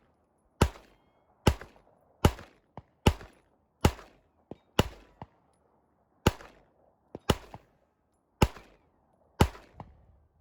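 A firearm fired in quick succession: ten loud shots, about one a second, with a short pause about halfway through. Fainter sharp cracks fall between some of the shots.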